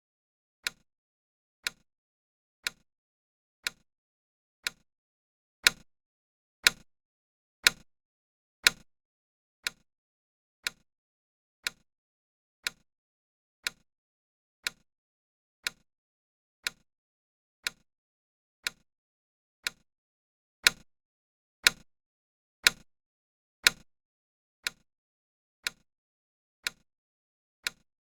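Countdown timer tick sound: one sharp click every second. A run of four louder ticks comes about six seconds in, and another about twenty-one seconds in.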